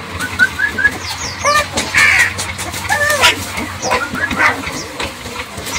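Young puppies whimpering and yelping: a run of short, high-pitched cries that bend in pitch, some thin and some harsher.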